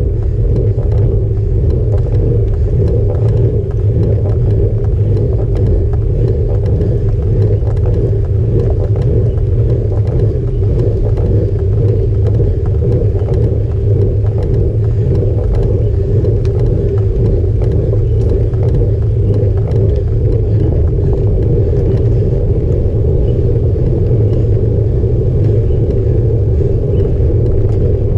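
Steady low rumble of a road bike rolling on rough pavement, its tyre noise and road vibration picked up by a handlebar-mounted camera, with no change in level.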